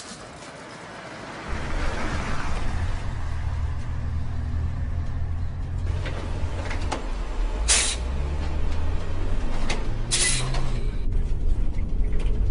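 Semi-truck's diesel engine idling low and steady, starting about a second and a half in, with two short, sharp air hisses from its brakes, one near the middle and one a few seconds later.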